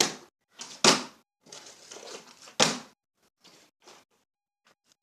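Partly filled plastic water bottles landing on a hard floor during bottle flipping: sharp thuds at the start, about a second in and at about two and a half seconds, with softer handling and scraping noises between.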